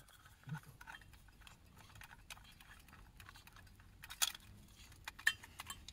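Faint, irregular light clicks and small metallic ticks from a spoon working in a small metal cup and a portable gas stove being handled on its canister, with a few sharper clicks about four and five seconds in.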